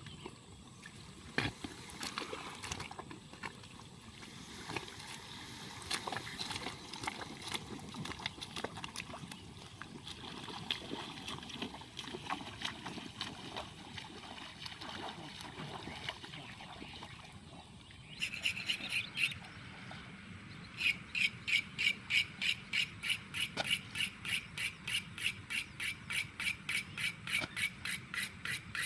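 Irregular rustling and soft clicks, then from about two-thirds in a steady rhythmic rasping, about two and a half strokes a second, of a blade scraping as it slices rice seedling mats for a transplanting machine.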